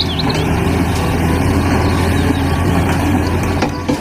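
Excavator diesel engine running steadily. Near the end, a rapid knocking starts at about four strokes a second, like a hydraulic rock breaker pounding.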